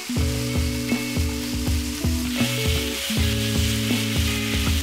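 Pork and vegetables with bean sprouts sizzling in a hot wok while being stir-fried with a wooden spatula, the spatula scraping and knocking a few times a second; the sizzle grows stronger about two seconds in. Background music plays underneath.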